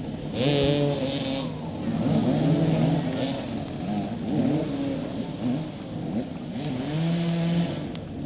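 Several motoball motorcycles revving and manoeuvring, their engine pitch rising and falling over and across one another, with a brief hissing burst about half a second in.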